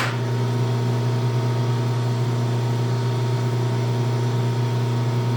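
Steady low machine hum that stays constant in pitch and level, from running shop machinery.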